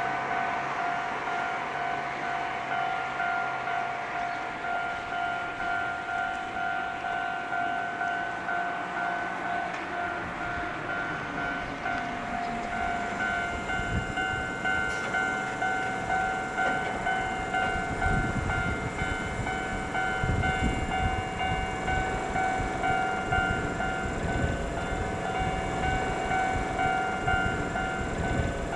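Railway level crossing alarm ringing steadily, with the low rumble of a Kōnan Railway electric train building from about halfway through and getting louder near the end.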